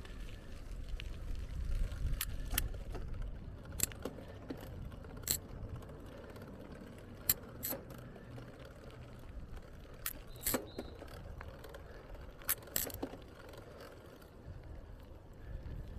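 Bicycle being ridden: low steady wind and road rumble, with sharp clicks and rattles about ten times, several in quick pairs.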